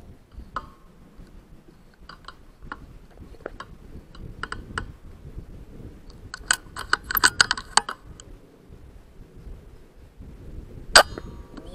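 Scattered clicks and taps, with a quick flurry of clicks in the middle and one sharp, louder click near the end, over a low rumble like wind on the microphone.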